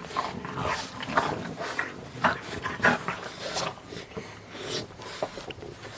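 French bulldogs playing together, making short, breathy dog noises at irregular intervals throughout.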